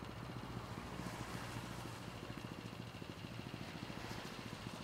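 An engine running steadily at idle, with a low, even pulsing.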